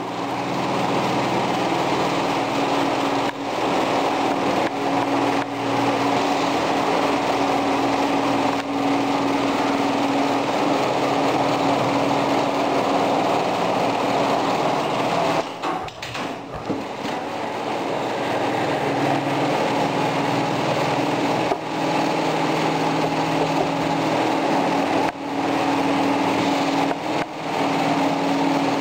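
Dürkopp Adler BEL-ROB industrial sewing machine running steadily on tarpaulin, a loud constant mechanical hum with a few brief dips.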